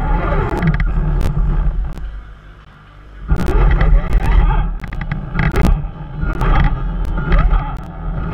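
Electric motor and gears of an RC crawler whining and rising and falling in pitch as it is driven, with sharp clicks and knocks and a heavy wind rumble on the microphone. The motor drops away briefly about two seconds in, then picks up again.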